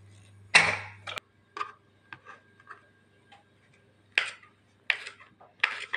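A pressure cooker's whistle weight set onto its vent with one sharp metal clack, over a low hum that stops about a second in. Then a small knife slicing a green chilli on a chopping mat, a short sharp tick with each cut, the cuts coming about every 0.7 s near the end.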